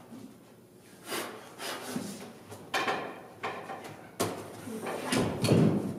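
A series of irregular knocks and clatters, one or two a second, growing louder toward the end.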